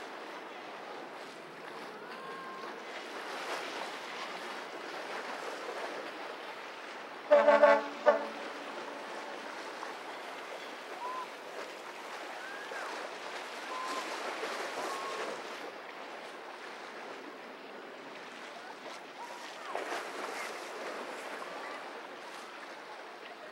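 Steady wind and water noise, with a loud, short horn blast about seven seconds in and a brief second toot right after it.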